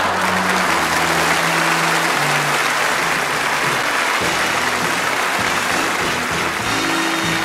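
Audience applauding over a band playing, with a bass line moving under the clapping.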